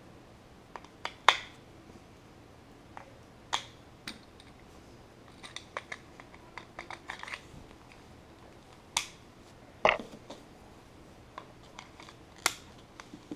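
Scattered sharp plastic clicks and clacks from handling a handheld GPS unit: AA batteries going into its battery compartment and a metal carabiner clipped onto it. The loudest click is about a second in, with others near the middle and near the end.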